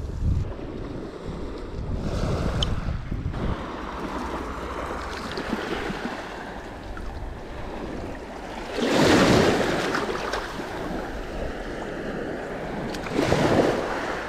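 Small waves washing in over a pebble beach, with wind on the microphone. Two louder surges come through, about nine seconds in and again near the end.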